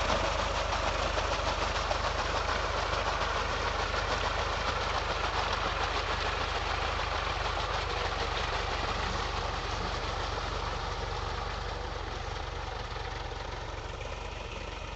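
Powertrac Euro 47 tractor's diesel engine running steadily under load while pulling a puddler and leveler through flooded paddy mud, growing gradually fainter toward the end.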